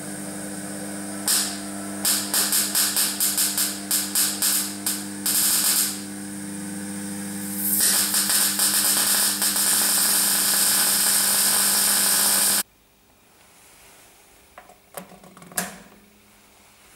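MIG/MAG welding arc over the welder's steady transformer hum. While the wire-feed speed is turned up, the arc first stutters in rapid, uneven spits and pops. It then settles into an even, steady sizzle, the sign that the wire feed is set right. It cuts off suddenly when the torch button is released, and a few faint clicks follow near the end.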